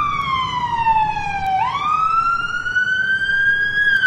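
Ambulance siren wailing: a slow falling sweep, then a quick rise about one and a half seconds in that keeps climbing slowly until it starts to fall again near the end.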